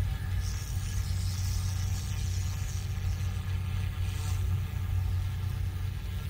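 Flywing FW200 V2 250-size electric RC helicopter in flight: a steady low rotor hum, with a higher whine that fades out about four seconds in.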